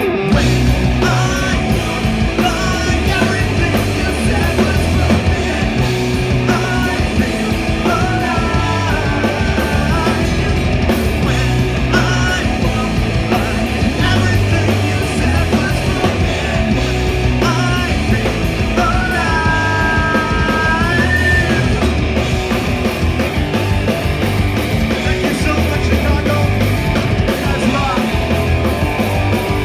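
Live rock band playing loud: distorted electric guitar, bass and drum kit, with a singer yelling and singing into a microphone through the PA.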